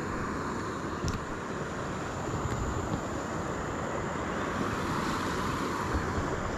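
Steady rushing of a shallow river running over rocks, with one small click about a second in.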